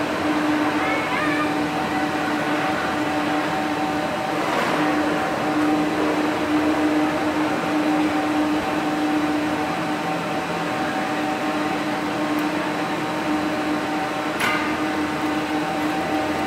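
Gondola ropeway station machinery running with a steady hum and a constant pitched tone, as the cabins travel through the station. There is a sharp clack about fourteen seconds in.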